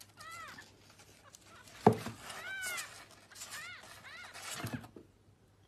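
A kitten mewing, several short high-pitched mews that rise and fall in pitch, with a sharp knock about two seconds in and a softer thump near the end.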